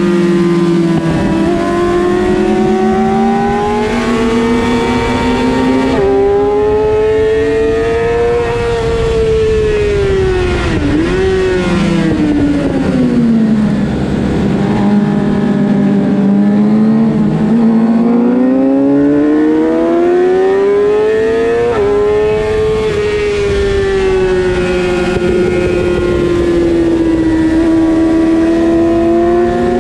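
Suzuki GSX-R600 inline-four engine at racing revs, heard from on board over wind rush. The engine note climbs with sudden drops at upshifts, about six seconds in and again about twenty-two seconds in. Between those, it falls away for a corner and then pulls back up hard.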